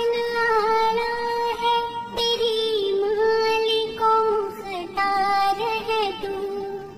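A young girl singing a dua in long, held notes with wavering ornaments, phrase after phrase with short breaths between.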